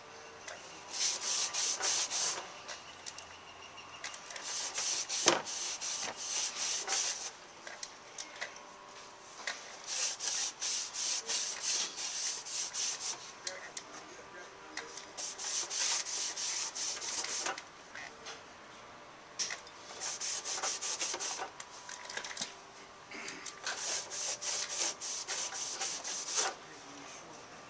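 Rasping strokes of a tool cutting into the car's plastic quarter panel, coming in bursts of a second or two with short pauses between, as the wheel-well opening is cut out.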